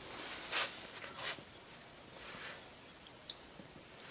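Faint rustling from a handheld camera being moved: two short swells of noise in the first second and a half, then a few light clicks over a low steady hiss.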